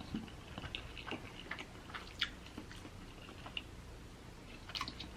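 Close-miked chewing of a person eating: faint, irregular mouth clicks and smacks.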